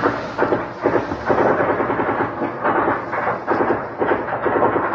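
Gunfire in repeated rapid bursts, many shots close together, echoing and rolling between bursts that come about every second.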